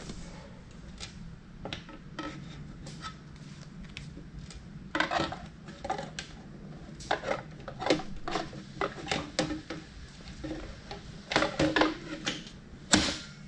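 Irregular hard clicks and knocks of an e-bike's battery pack being handled and fitted into the frame's down tube, with louder bursts of clatter about five seconds in and again near the end.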